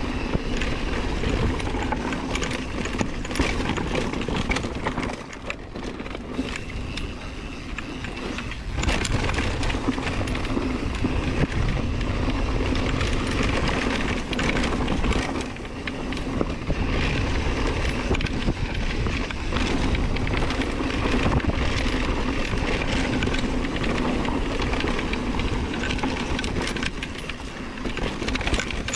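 Mountain bike being ridden over a rough trail: continuous rattling of the bike and tyre noise with many small knocks, and a deep wind rumble on the microphone.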